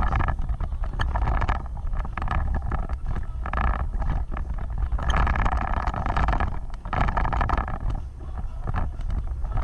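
Off-road vehicle driving, with a steady low rumble and wind on the microphone, and surges of louder mid-range noise every second or so.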